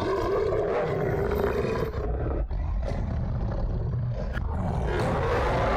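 Film sound effect of a werewolf snarling and roaring: a rough, growling animal roar that runs on with a short break about two seconds in.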